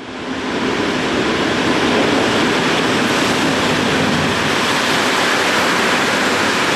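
Passenger train running into a covered station platform: a loud, steady rush of wheel and air noise that fades in over the first second.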